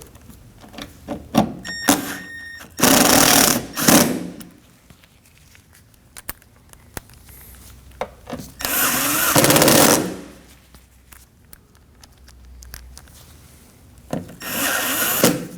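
Power driver running in three bursts of about a second each, driving the three Torx screws that hold the door latch in the door, with small clicks of handling between them.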